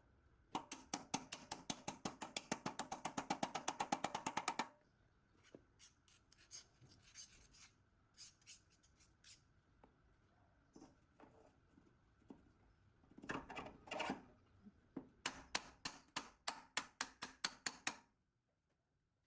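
A hand tool scraping a hard surface in quick repeated strokes: a fast run of about ten strokes a second for four seconds, a few single scrapes, then a slower run of about four strokes a second near the end.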